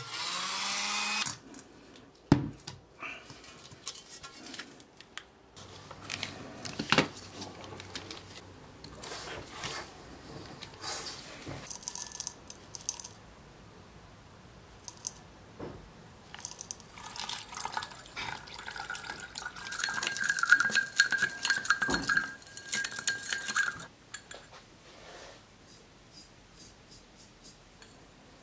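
A small rotary tool winds down and stops about a second in. Then come scattered clinks of glassware and liquid sounds as a benzotriazole solution is made up in a glass beaker, with a few seconds of ringing scraping past the middle, as of stirring in the glass.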